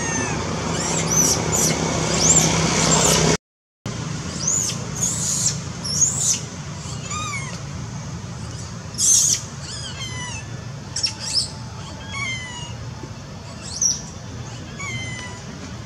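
Shrill, high-pitched animal calls: many short squeals that rise and fall, thick in the first few seconds, then sparser falling chirps repeated every second or two. The sound cuts out completely for a moment about three and a half seconds in.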